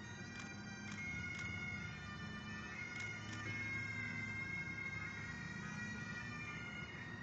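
Bagpipes playing, a melody of long held notes over the steady drones.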